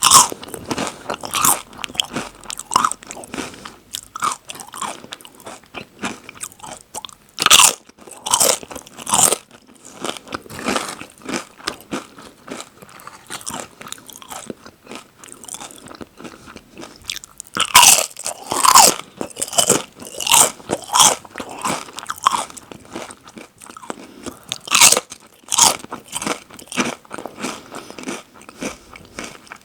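Close-miked crunching of Lay's and Doritos chips: loud, sharp bites that come in clusters a few times, with softer chewing crunches between them.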